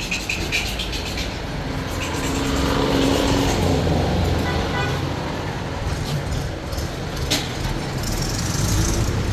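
A motor vehicle running and passing close by, growing louder about two seconds in and easing off after about five seconds, with a brief low steady tone in the middle; a single sharp click about seven seconds in.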